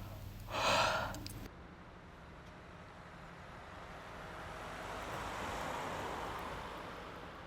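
A long breathy yawn: a short, loud breathy burst just under a second in, then a drawn-out breathy swell that builds to a peak about six seconds in and fades near the end.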